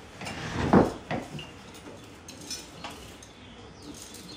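A loud scrape and thump about a second in, as a chair is drawn up to a table, then a few light clinks of spoons against soup bowls.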